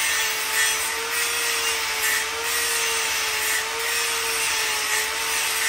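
Angle grinder running under load, its disc grinding down a lumpy weld bead on a welded motorcycle sissy bar: a steady motor whine over a rasping hiss of disc on metal that swells and eases as the pressure changes.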